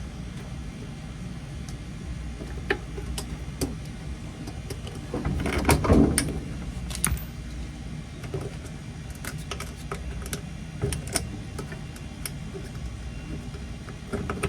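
Scattered clicks and knocks of a new shift slider being worked onto a washer gearcase, with a louder scraping push about six seconds in, over a steady low hum.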